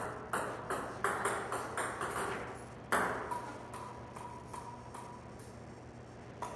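Table-tennis rally: the ball clicks back and forth off the paddles and the Joola Tour 2500 table about three times a second, with a louder hit about three seconds in, after which the clicking stops until a few more hits near the end.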